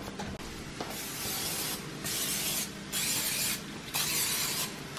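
Aerosol cooking spray hissing in four short bursts of about half a second to a second each as bowls are greased.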